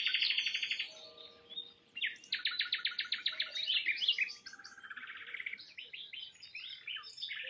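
Several songbirds singing together: rapid trills and varied chirps and warbles overlapping, with a short lull about a second in.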